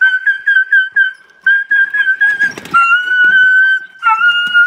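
Frightened dog screaming: a shrill, high-pitched cry held for a second or more at a time, with short breaks, as it is handled and pushed into a plastic pet carrier. A short clatter comes about two and a half seconds in.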